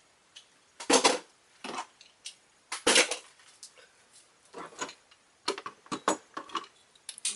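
Hard toy parts and packaging from a Beyblade kit being moved about by hand: irregular clicks, knocks and clatters, the loudest about one second and three seconds in.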